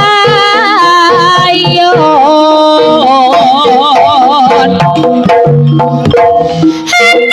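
Live Jaranan music from East Java: a wavering, vibrato-laden melody line over hand-drum rhythm, with a short dip in the sound near the end.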